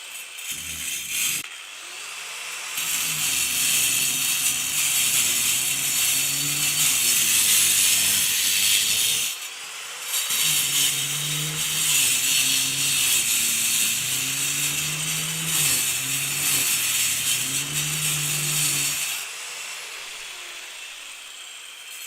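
Angle grinder cutting concrete: a harsh, high grinding over a motor note that dips and recovers as the disc bites. There is a short touch first, then two long cuts with a break of about a second between them. Near the end the grinder runs free, more quietly.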